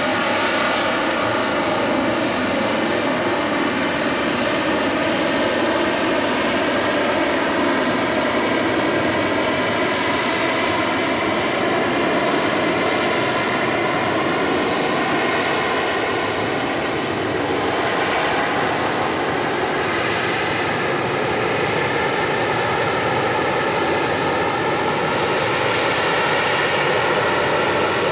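AV-8B Harrier II's Pegasus turbofan running steadily at hover thrust: a loud, even jet noise with many steady whining tones through it.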